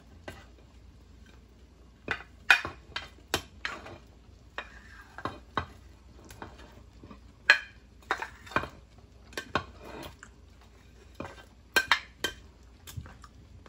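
A spatula scraping and knocking fried meat off a china plate into a pot of soup: a string of irregular clinks and taps, starting about two seconds in, over a faint steady hum.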